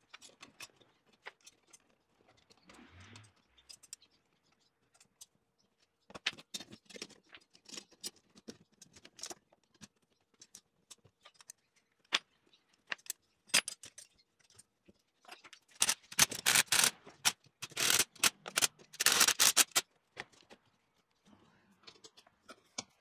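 Steel flat-bar chair legs and bolts clinking and rattling against each other as they are fitted together by hand, a string of separate metal clicks with two louder spells of dense rattling in the second half.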